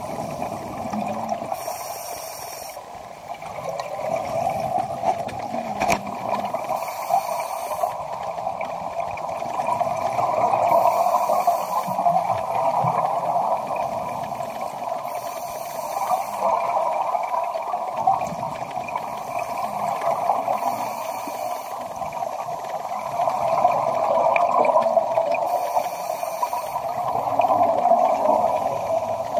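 Scuba diver breathing underwater through a regulator, with gurgling exhalation bubbles. A short hissing breath comes about every five seconds over a steady wash of water noise.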